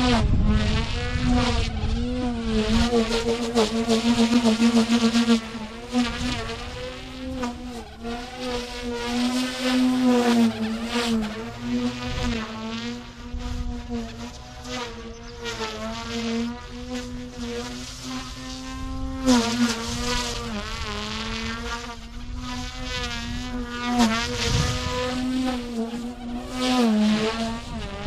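OMPHOBBY M2 micro electric RC helicopter in flight: a steady, high buzzing whine from its motor and rotors. The pitch wavers slightly and dips briefly a few times, most clearly about two-thirds of the way through, and the whine is loudest in the first few seconds.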